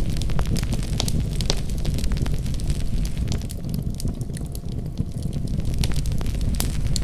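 Wood fire in a fireplace crackling: a steady low rumble of flames with many sharp, irregular pops and snaps, easing off slightly around the middle.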